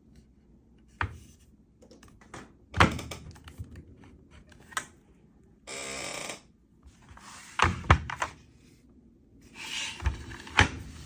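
A 3D-printed plastic tool box being handled: a string of irregular knocks and thunks, with a short scraping slide about six seconds in.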